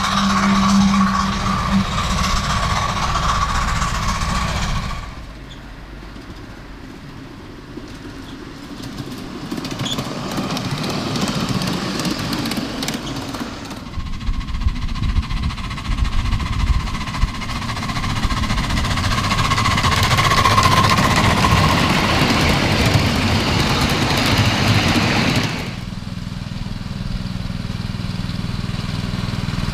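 7½-inch-gauge miniature train running on track, its wheels rolling and rattling. The sound changes abruptly about 5, 14 and 26 seconds in, between separately recorded passes, and is quieter from about 5 to 14 seconds in.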